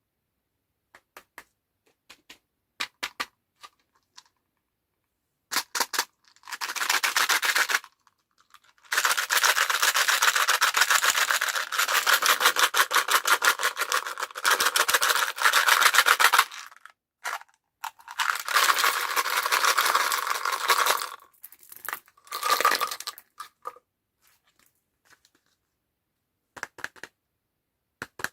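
Plastic candy packaging being crinkled and torn open in several long stretches, after a few light clicks and taps.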